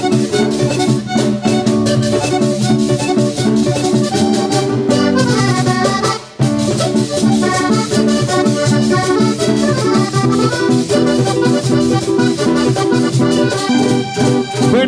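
Vallenato band playing an instrumental passage led by a Hohner button accordion, with guitar and percussion underneath. The music breaks off for a moment about six seconds in, then comes straight back.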